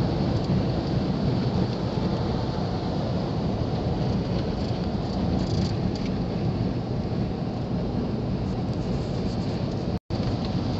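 Steady rumble of road and wind noise heard inside the cab of a 4x4 driving on a paved road. The sound cuts out for a moment about ten seconds in.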